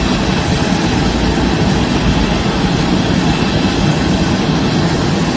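Steady, loud rumble and roar of an airliner's jet engines, unbroken.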